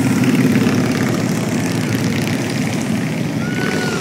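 A line of cruiser motorcycles riding past one after another, their engines running together in a steady, loud low drone. A brief high tone sounds near the end.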